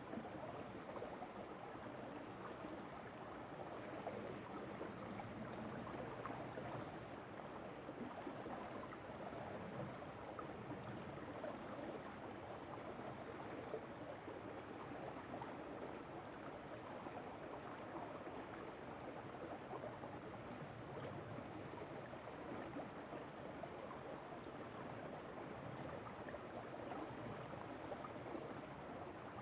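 River water running over stones: a steady rushing and burbling that does not change.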